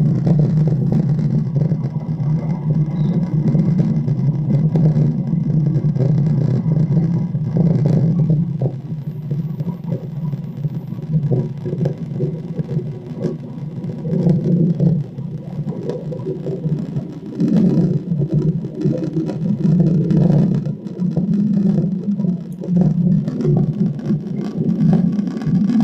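Played-back outdoor recording of a steady low aircraft engine rumble that swells and fades.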